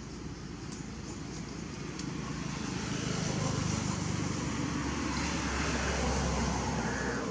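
A motor vehicle passing by: a low rumble that swells a few seconds in and eases off near the end.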